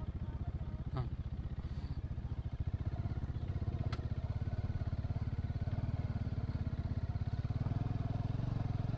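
Bajaj Dominar motorcycle's single-cylinder engine running steadily at low speed on a muddy dirt track, with a quick, even exhaust beat. Two light clicks come through, about a second in and about four seconds in.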